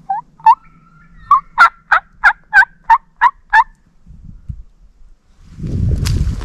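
Wild turkey yelping: a series of about ten short, loud, two-toned yelps at roughly three a second, stopping after three and a half seconds. Near the end comes a brief rustle of dry leaves and movement close to the microphone.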